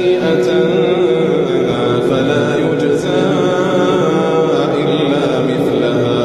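A man's voice reciting the Quran in a slow, melodic chant, holding long drawn-out notes that bend gently in pitch.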